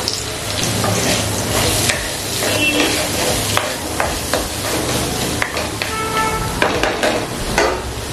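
Onion frying in a hot pan with whole spices, sizzling steadily, while a spatula stirs and scrapes, giving frequent short clicks against the pan.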